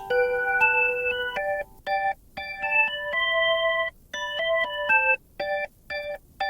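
Background music: an electronic keyboard melody of sustained chords and short notes, broken by several brief pauses.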